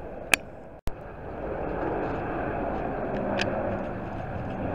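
Boeing 787-8 airliner on final approach, its jet engines a steady noise that grows louder about two seconds in. A sharp click and a brief dropout come near the start.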